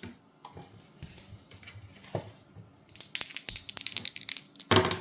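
Dice rolled for a tabletop baseball game: a dense run of quick rattling clicks for about two seconds, then a sharper clatter near the end as they land.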